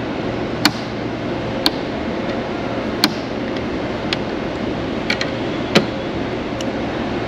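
Sharp, irregular clicks, about six of them, as the drive-roll pressure arms of a RobustFeed U82 wire feeder are swung down and handled, over a steady background hum.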